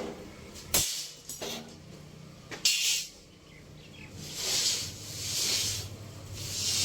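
Four sharp metallic clanks in the first three seconds, then three swelling passes of a grinder on metal, each rising and fading over about a second.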